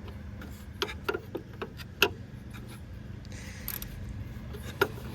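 Hand work in a car's engine bay: a dozen or so sharp, irregular clicks and taps of metal parts and tools, bunched about a second in and again near the end, over a steady low hum.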